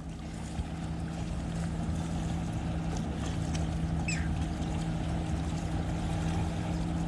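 Steady low drone of a boat engine running, growing a little louder over the first few seconds, over a low rumbling wash. A short high chirp sounds about four seconds in.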